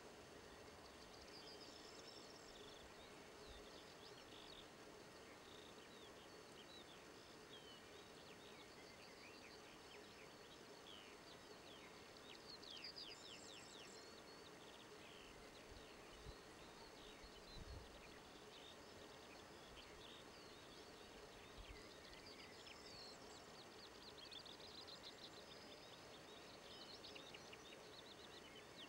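Faint birdsong: small birds calling in quick, high chirps and trills, scattered throughout over a faint steady background hiss.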